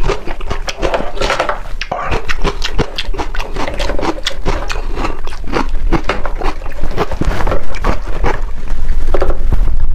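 Close-miked eating: a dense run of wet smacking and chewing as meat is eaten off the bone.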